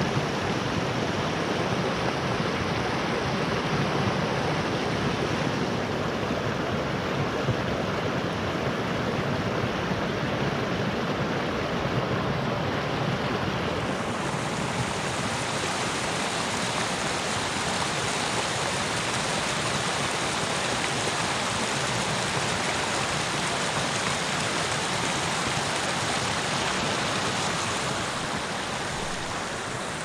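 Rain-swollen forest creek rushing over small cascades: a steady rush of water. About halfway through it turns brighter and hissier, and it eases slightly near the end.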